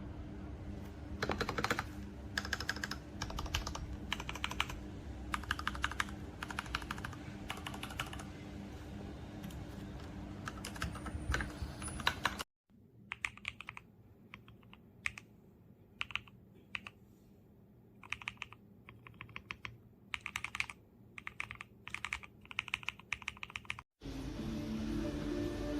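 Typing on a mechanical keyboard fitted with factory-lubed Gateron Pro Milky Yellow linear switches: quick runs of keystrokes. About halfway through the recording cuts to a second, quieter take without the steady hum underneath.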